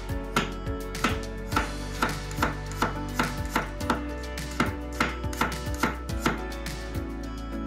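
Kitchen knife slicing garlic cloves on a wooden cutting board: a steady rhythm of sharp knocks, about two to three cuts a second, stopping near the end.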